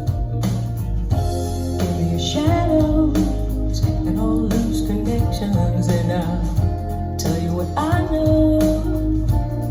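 A song with guitar, bass and a sung vocal, played back through Acoustic Energy Evo 3 bookshelf loudspeakers. Vocal phrases come in about two and a half seconds in and again near the end, over a steady bass line.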